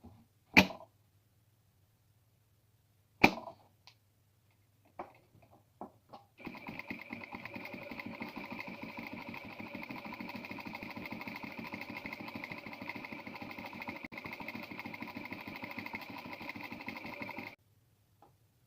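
Sewing machine stitching at a fast, even rhythm for about eleven seconds, then stopping abruptly. Before it starts there are two sharp knocks and a few lighter clicks.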